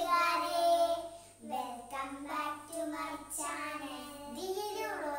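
Two young girls singing a short tune together, their voices held on sustained notes with brief breaks between phrases.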